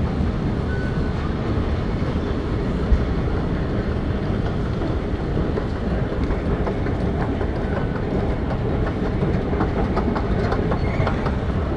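Steady low rumble of a busy underground rail station concourse, with crowd din and a running escalator; a single thump about three seconds in.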